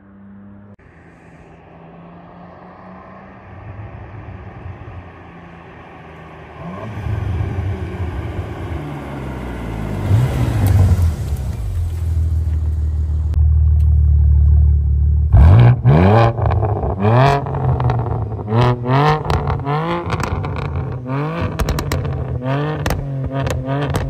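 BMW G87 M2's twin-turbo inline-six through a Fi Exhaust valvetronic catback with the valves open, accelerating toward and past, getting louder as it comes and dropping in pitch as it goes by about ten seconds in. About fifteen seconds in the sound cuts to the same engine revved at a standstill in short blips, about one a second, each rising and falling.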